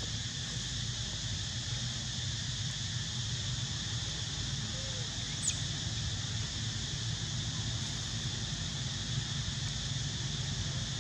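Steady high insect drone over a low, even rumble, with one brief high squeak that falls in pitch about five and a half seconds in.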